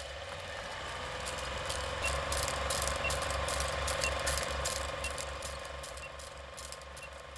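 Old film projector sound effect: the mechanism runs with a steady rhythmic clatter and film crackle and pops, and a short high countdown beep sounds about once a second from about two seconds in.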